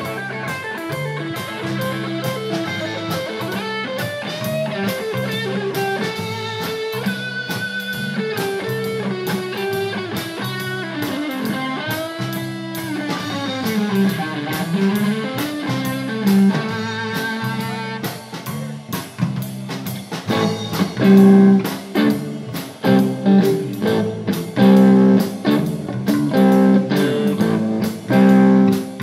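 Live blues-rock power trio of electric guitar, bass guitar and drum kit playing an instrumental passage, with the electric guitar bending notes over a steady drumbeat. About two-thirds through, the band switches to loud stop-start stabs.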